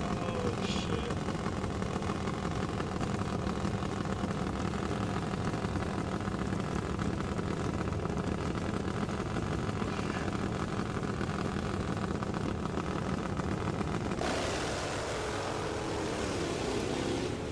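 Top fuel dirt drag motorcycle engine running steadily at the start line, then about fourteen seconds in the bike launches and the engine goes to full throttle with a sudden, harsher, fuller sound.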